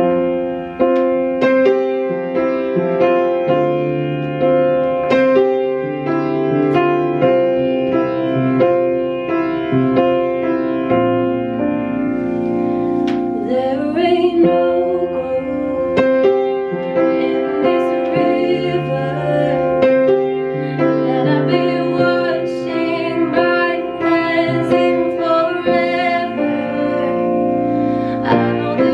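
Upright piano playing chords and melody, with a woman singing along over it at times.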